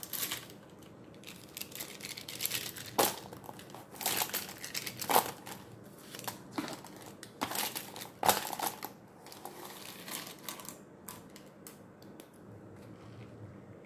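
Plastic felt-tip markers clattering and rustling on paper as they are handled and sorted: irregular clicks and scrapes, the loudest about two-thirds of the way through, then a few lighter clicks near the end.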